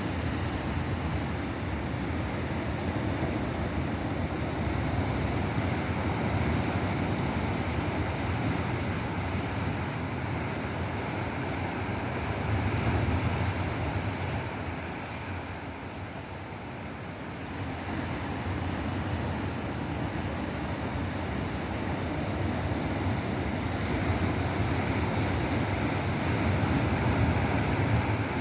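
Ocean surf breaking on the shore, a steady low rush that swells about halfway through, then eases for a few seconds before building again. Wind buffets the microphone.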